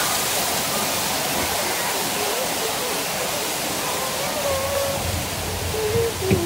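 Steady rush of water from the boat ride's rainforest scene, with faint wavering tones over it. A low thump comes near the end.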